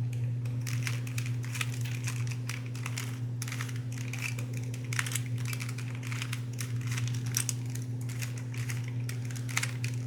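A stiff, stickered Rubik's brand cube being turned by hand through an algorithm: a quick, irregular string of plastic clicks and clacks as the layers turn, over a steady low hum.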